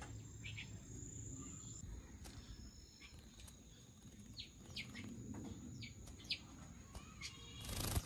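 Faint, scattered short bird chirps, several seconds apart. Near the end, a brief rustle as a bird shakes out its wet feathers.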